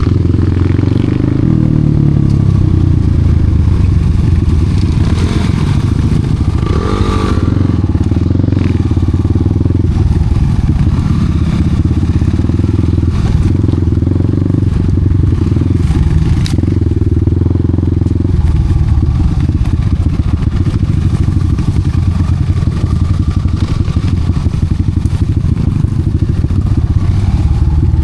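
Enduro dirt bike engine running loud and close, its revs shifting up and down, with occasional knocks and clatter.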